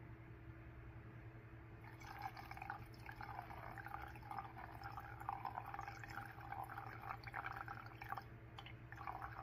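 Paint thinner being poured into a graduated paint mixing cup, a steady trickling splash that starts about two seconds in and runs on, over a steady low hum.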